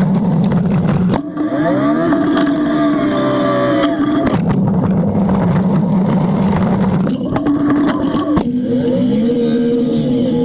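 John Deere backhoe's diesel engine working while pushing snow with a front blade. It runs steadily, then revs up about a second in and again about seven seconds in, holding the higher speed for a few seconds each time before dropping back.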